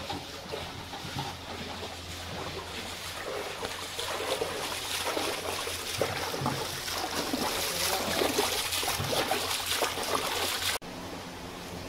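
Rice being washed by hand in a large steel tub, with water from a hose running in: steady splashing and sloshing as hands churn the rice. This cuts off suddenly near the end, giving way to a low steady hum.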